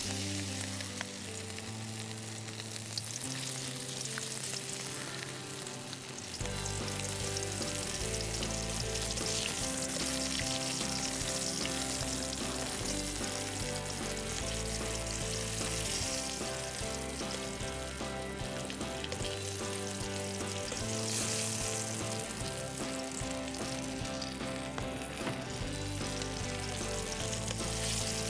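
Flour-dredged fish frying in hot oil in a wok, a steady sizzle, with tongs stirring now and then. Background music plays underneath, louder from about six seconds in.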